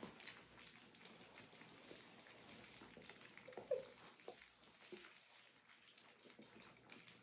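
French bulldog puppies, three weeks old, lapping and licking soft food from rubber lick mats: faint, quick, irregular wet smacking and clicking. There is one short puppy squeak about halfway through.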